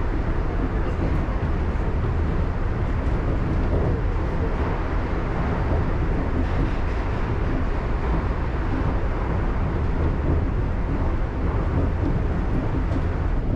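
Shonan Monorail suspended monorail car running steadily between stations, a continuous low rumble of its rubber-tyred running gear and motors heard from inside the car.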